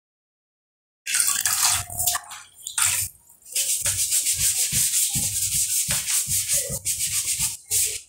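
Wet sponge scrubbing a refrigerator door in quick back-and-forth strokes, several a second, rubbing off leftover sticker glue. It starts about a second in, with a short break near the middle.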